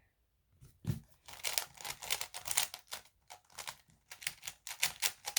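Rubik's cube being turned quickly by hand, a fast irregular run of plastic clicks and clacks as a G perm algorithm is executed.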